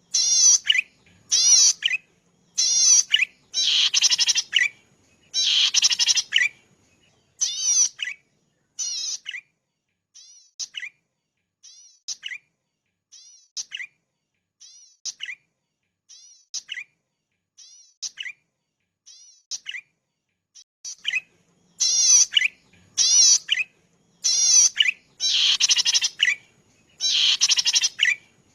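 Zitting cisticola (cici padi) singing: a long series of short, high, buzzy trilled notes, about one or two a second. The notes are louder and longer near the start and end, and fainter and shorter in the middle.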